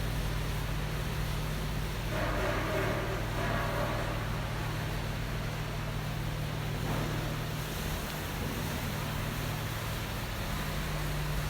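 Steady low hum with an even hiss of background noise, and a faint distant voice about two seconds in.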